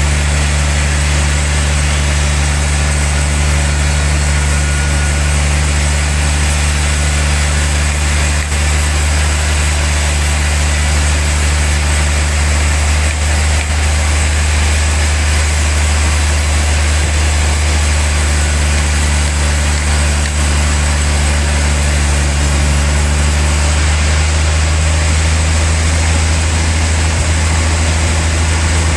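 Big-log sawmill machinery running steadily: a deep, constant machine hum with a hiss spread above it. About five seconds before the end the hiss thins and the hum grows slightly louder.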